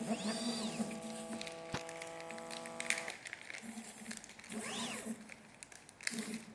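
Desktop pick-and-place machine's stepper motors whining in a rising-then-falling sweep as the gantry moves, twice: near the start and about five seconds in. A steady hum runs until about three seconds in, with a sharp click near two seconds.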